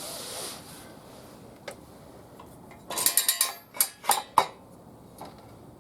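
A brief hiss at the start, then two quick clusters of metal clinks and rattles about three and four seconds in: hand tools and small metal parts being handled during motorcycle oil-change work.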